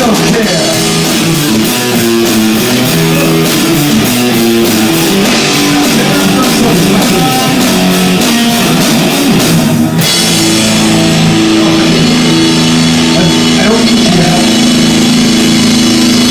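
Live rock band playing electric guitar and drum kit, distorted by an overdriven phone microphone. About ten seconds in, the high cymbal hiss drops out suddenly and held guitar notes ring on.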